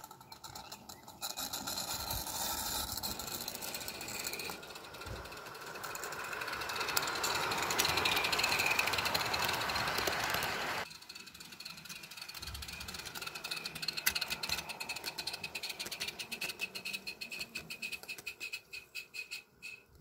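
16mm Association Victory live steam locomotive on 32 mm garden track running with its train of wagons. A hiss swells and then cuts off suddenly about eleven seconds in, followed by quick, irregular clicking and rattling of the train on the track.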